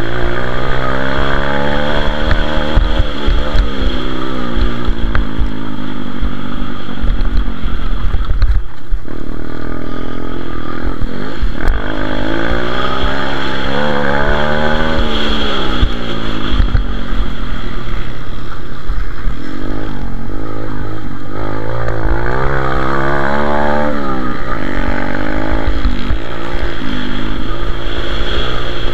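Pit bike engine heard from on board, revving up and dropping back again and again as the rider accelerates and backs off between turns. There are short throttle-offs about a third of the way in and again a little past the middle.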